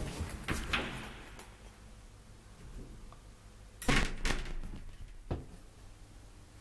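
Elevator doors being handled and shut: knocks and a short rattle in the first second, a loud clunk about four seconds in as the wire-glass landing door of the 1957 Haack traction elevator closes, then a single lighter click about a second later.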